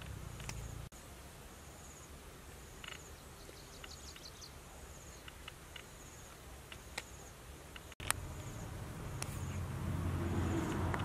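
Outdoor ambience of insects chirping in short, high trills repeated about once a second, over a steady background hum that grows louder in the last few seconds, with scattered faint ticks.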